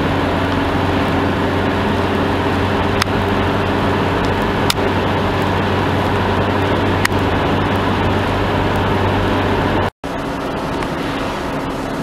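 Steady engine drone and tyre noise inside a car's cabin at motorway speed, with a few light clicks. Near the end it drops out for an instant and carries on a little quieter.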